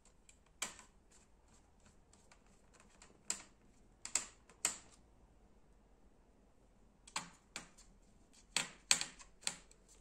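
Sharp, irregular clicks and taps of a small screwdriver and tiny screws against a laptop's plastic and metal parts while the screws are driven in. The clicks come in two runs: a few spaced ones in the first five seconds, then a quicker cluster from about seven seconds to near the end.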